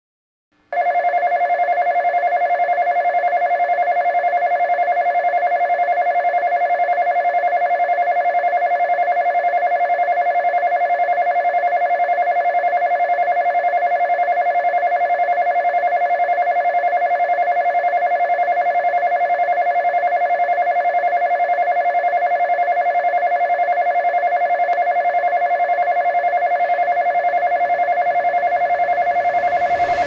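Nishitetsu station platform passing bell, an electric bell warning that a train will pass through without stopping, ringing rapidly and without a break. It starts about a second in.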